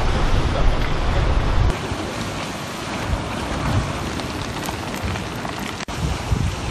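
Wind buffeting the microphone for the first couple of seconds, stopping abruptly. Then a log campfire crackling and hissing under a cast-iron Dutch oven, with scattered small pops.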